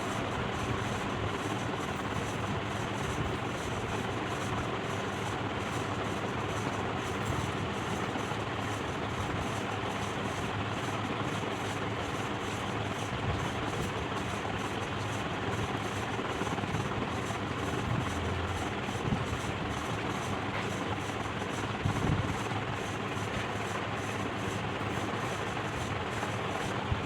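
Ceiling fan running with a steady mechanical noise that it should not make, with a few brief knocks about two-thirds of the way through.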